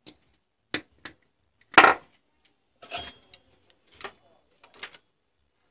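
Objects being picked up and set down on a workbench: a string of separate knocks and clicks as an orange ring and a cylindrical lithium-ion cell are placed. The loudest, longest clunk comes about two seconds in.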